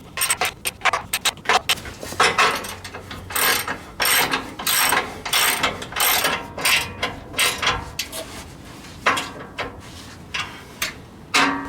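Hand ratchet wrench clicking in repeated short strokes as bolts are turned, in irregular runs with brief pauses.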